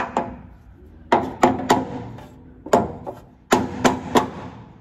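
Small hammer tapping a steel tube on a car chassis to nudge it into position, metal striking metal with a short ring after each blow. The taps come in quick groups of two or three, about nine in all.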